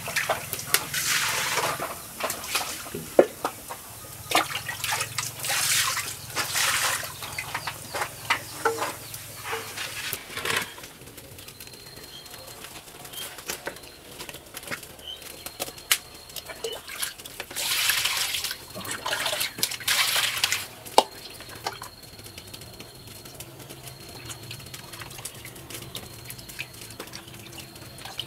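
Water splashing and sloshing in several bouts as pieces of cut catfish are washed by hand in a plastic basin, with scattered clicks and knocks between.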